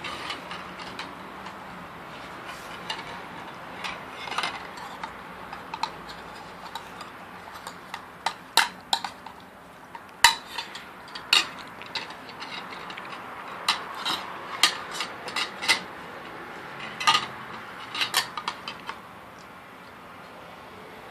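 A dog eating cereal: irregular crunches and sharp clicks, some like a bowl being knocked, coming thickest and loudest through the middle stretch.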